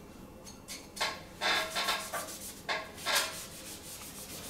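A cloth rubbing over glass blocks in short wiping strokes, about five of them, cleaning mortar residue off freshly laid glass blocks.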